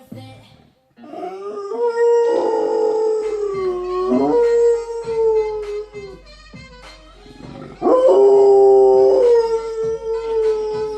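Pet dog howling in long drawn-out notes along to the music of a TV commercial, which plays underneath. Two long howls: the first starts about a second and a half in, and the second, the loudest, about eight seconds in.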